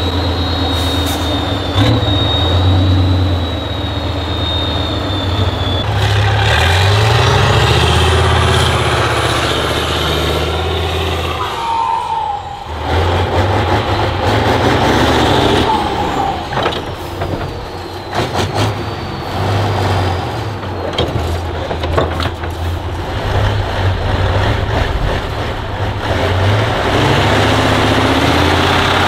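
Heavy 6x6 off-road trial truck's diesel engine revving up and down repeatedly, with a high whine that climbs about six seconds in and then falls away.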